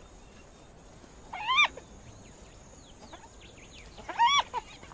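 Spotted hyena giving two short, high whining calls about two and a half seconds apart, each rising in pitch and then dropping away.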